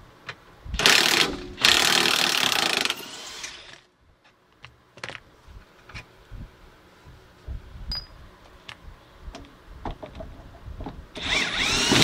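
Cordless impact wrench hammering on the rusty 14 mm rear strut mounting bolts: two loud runs about a second in, then scattered small metallic clicks and knocks, then another short run near the end with a rising whine.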